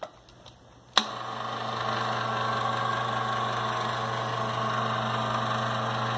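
An electric motor on a homemade drill press is switched on with a click about a second in. It runs with a steady hum and whir, swelling slightly as it gets going, then cuts off abruptly near the end.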